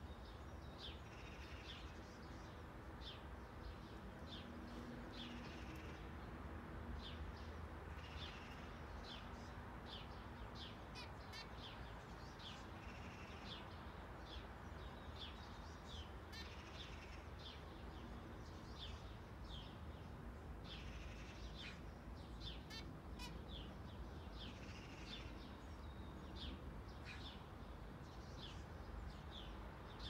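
Budgerigars and zebra finches calling: many short, high chirps, several every second, over a steady low background rumble.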